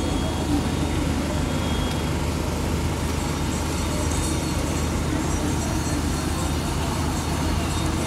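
A steady low hum under a constant outdoor din, with faint voices.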